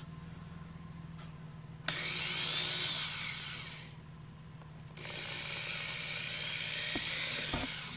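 Power drill with a 3 mm bit boring holes through the plastic front bumper cover: two drilling runs of a couple of seconds each, starting about two seconds in and again about five seconds in.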